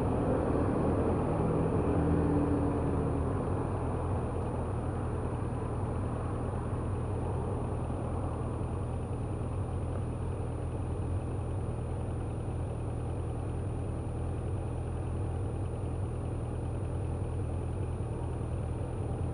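Motorcycle engine idling steadily, heard from a helmet camera. Another vehicle drives past during the first few seconds.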